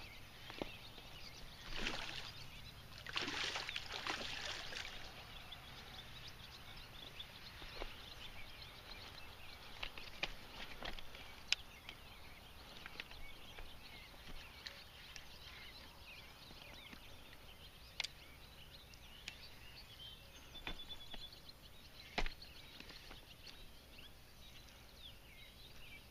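Faint water splashing as a hooked pike thrashes at the surface, strongest about two seconds in and again from about three to five seconds in, with scattered small clicks throughout.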